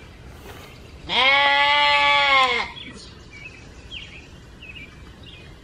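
A goat bleating once, a single long, loud, steady-pitched call of about a second and a half.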